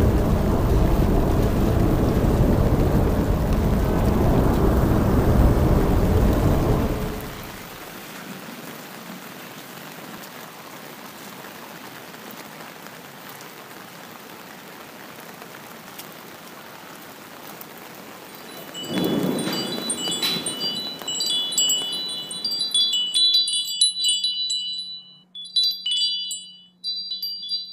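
A loud, low rumbling noise that drops away after about seven seconds to a faint hiss. A short swell comes a little past halfway, then high tinkling chime tones ring out to the end.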